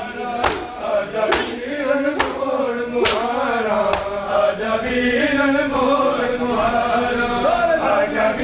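Group of men chanting a noha (Shia mourning lament) together, with sharp open-hand slaps on bare chests (matam) keeping the beat about once a second; the slaps stop about halfway through while the chanting goes on.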